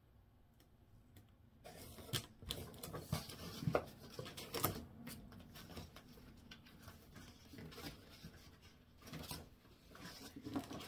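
Paper and cardboard rustling, with scattered light taps and crinkles, as printed cross-stitch chart packets are handled and lifted out of a cardboard shipping box. It starts about two seconds in.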